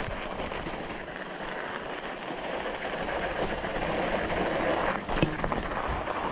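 Fat bike tyres rolling over packed snow trail, a steady noisy rush mixed with wind on the microphone, with one sharp click about five seconds in.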